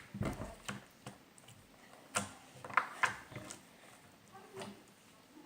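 Homemade glue slime being poked and squished with fingers, giving a few irregular sharp clicks and pops.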